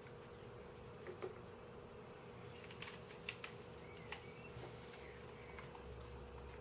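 Faint steady hum with a handful of light clicks and taps from black plastic puzzle pieces being handled during assembly, the sharpest about a second in and about three seconds in.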